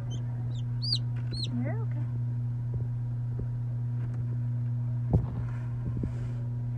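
Newly hatched chick peeping: a few high, arching peeps about a second in, over the steady hum of the incubator. A few sharp knocks about five seconds in.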